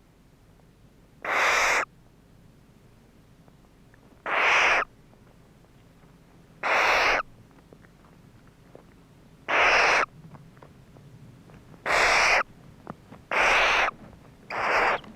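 Bird giving harsh, hissing screeches, seven in all, each about half a second long and coming every two seconds or so.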